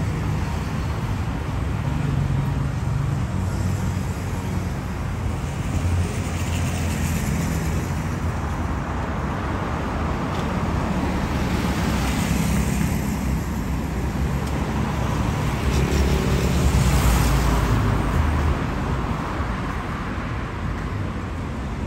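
Rush-hour city road traffic: a continuous rumble of engines and tyres, swelling as several vehicles pass, loudest about three-quarters of the way through.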